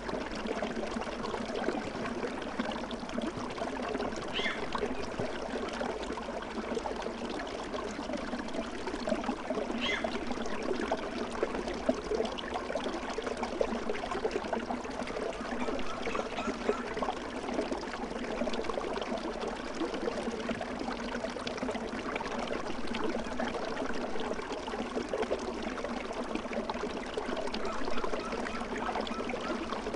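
Running water of a small stream, a steady, unbroken rush with no pauses.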